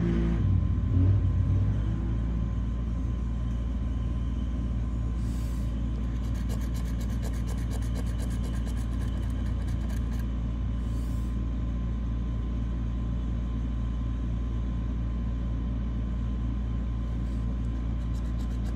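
A steady low rumble with a faint hum throughout. Over it, faint rapid scratching of a metal tool on a scratch-off lottery ticket comes in from about six to ten seconds in, and again near the end.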